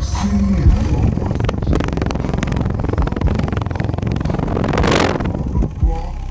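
A ported 10-inch subwoofer playing deep bass, picked up by a phone microphone held right at the moving cone: a dense crackling rumble with many clicks, and a rush of hiss about five seconds in.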